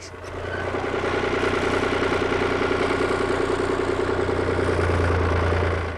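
A machine's engine running steadily at an even pitch, fading in over the first second and fading out near the end.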